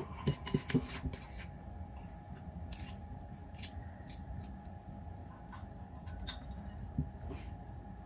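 Metal spoon scraping and knocking against a ceramic mixing bowl while stirring a thick coconut cake mixture. A quick run of scrapes comes in the first second, then occasional single clinks.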